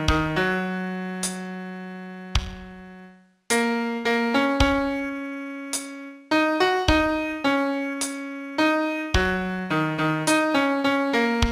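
Solo piano playing a slow melody one note at a time, each note struck and left to fade, with a short pause about three and a half seconds in.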